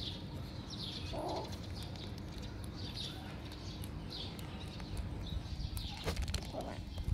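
Faint short bird chirps, several in turn a second or two apart, over a steady low rumble on the microphone, with a few small clicks near the end.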